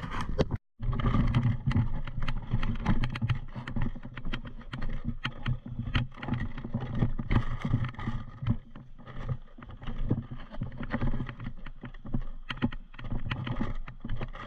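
Low rumble of wind and handling noise on the microphone, with many irregular clicks and knocks, cutting out completely for a moment about half a second in.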